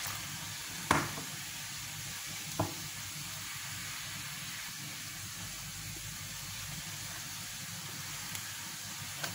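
Hands mixing flour, semolina and warm water into a dough in a glazed clay bowl: a soft, steady rustling hiss, with two light knocks about one and two and a half seconds in.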